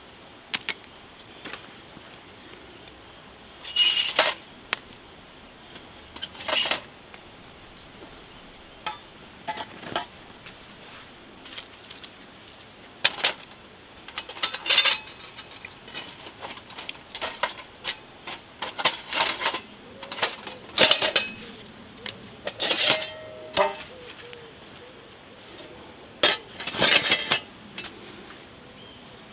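Folding stainless-steel wood stove being taken apart by hand: thin metal panels and hinges clinking and clattering in irregular bursts, a few clanks ringing briefly.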